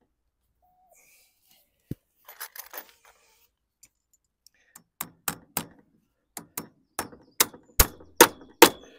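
Claw hammer driving nails through a galvanised steel nail plate into a timber rail: about ten sharp strikes in the second half, coming louder toward the end. Before that there are only a click and some faint handling rustle.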